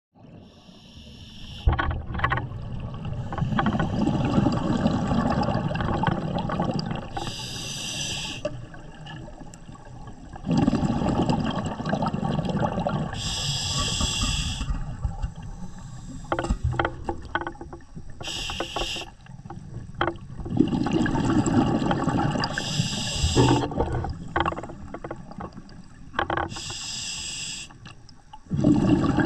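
Open-circuit scuba breathing underwater: a hissing inhale through the regulator every four to six seconds, alternating with rumbling, gurgling exhaled bubbles and a few small clicks.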